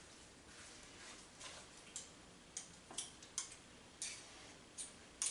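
Faint, irregular clicks and light scrapes of a utensil against a pan, about eight to ten across a few seconds, as seasoning is mixed into shredded pork.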